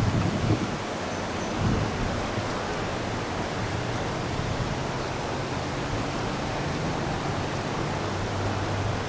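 Steady rushing of a small, shallow mountain creek running over its stony bed, with a few low thumps in the first two seconds and a faint low hum underneath.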